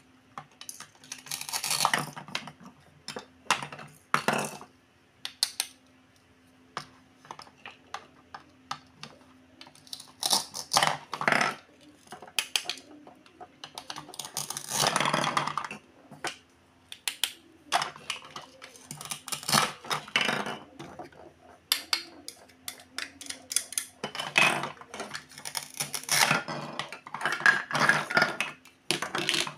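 Toy plastic fruit and vegetables being cut apart with a plastic toy knife: a string of light plastic clicks and taps as pieces are handled and set down, with several longer rasping tears of about a second as the velcro-joined halves are pulled apart.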